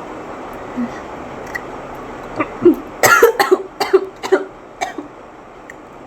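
A woman coughing in a quick run of short coughs, starting about two and a half seconds in and lasting about two and a half seconds. The coughing is set off by the heat of the raw chillies she is eating.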